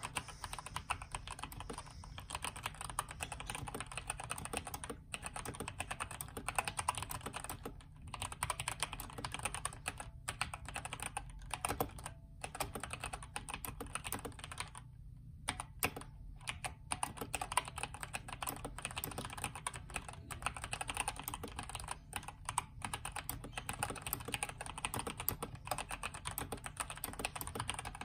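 Typing on a modded Redragon K552 mechanical keyboard with stock Outemu red linear switches, its case filled with polyfill and its PCB tape-modded: a fast, continuous run of key clacks with a few short pauses.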